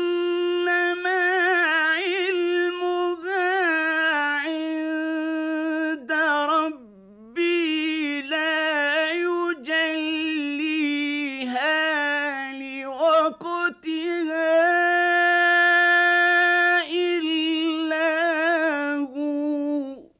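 A male Quran reciter's voice chanting in the ornamented mujawwad tajweed style. He draws one long melismatic phrase out on high held notes with quick turns and wavers, with a short breath break about seven seconds in.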